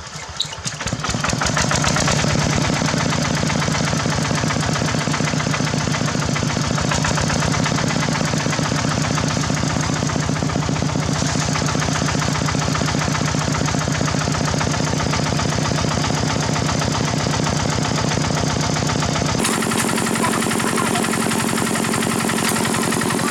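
The engine of a Khmer tractor picks up over the first second or two, then runs steadily with a rapid firing beat. Its note shifts about nineteen seconds in.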